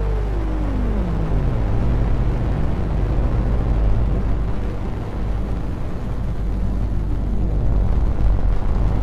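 Lumanoise v4 experimental electronic instrument sounding a dense, steady low drone, with a pitched tone that glides down over the first couple of seconds, wavers at the bottom, and sweeps back up near the end, the filter being swept. The sound runs through a Memory Man with Hazarai delay and plate reverb.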